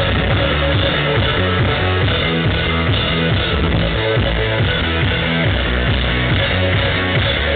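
Live band playing loud electro-rock: a steady, driving drum beat with bass and synthesizer keyboard.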